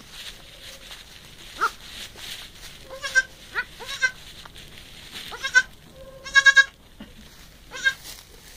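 Newborn goat kids bleating: several short, high-pitched calls, with a longer, louder bleat about six and a half seconds in.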